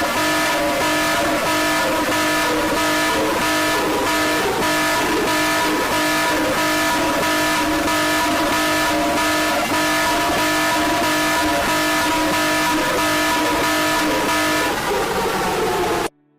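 Loud, harsh alarm sound made of several steady held tones over a dense noisy wash, beating in a regular pulse. It cuts off abruptly near the end.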